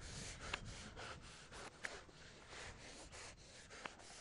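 Faint, quick, irregular scraping or rubbing strokes, several a second, with a couple of short high squeaks.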